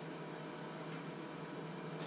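Steady hiss with a faint low hum: the room tone of a small kitchen, with no distinct event.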